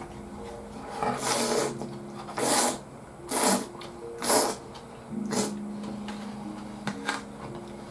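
Slurping tempura udon noodles from the pan: about six short, loud slurps, roughly a second apart, with a double one near the end.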